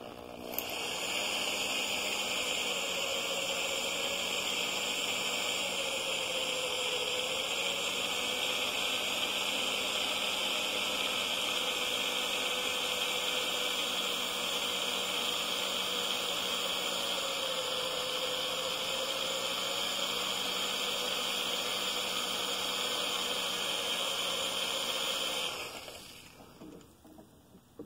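Electric hand drill running steadily, its bit boring into the end of a steel worm-gear shaft in a Bridgeport mill head, enlarging the hole so it can be tapped larger. The drill stops about 25 seconds in.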